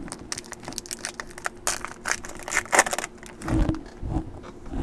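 Crinkling and tearing of a foil trading-card pack wrapper as a Topps Fire pack is ripped open, with a couple of dull knocks in the second half.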